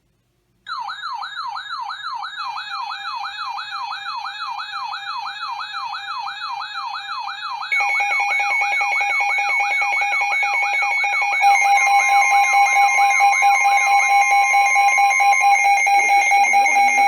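Electronic warbling siren tone, sweeping up and down about three to four times a second. Steady alarm tones join it about 8 seconds in and again about 11 seconds in, and each step is louder.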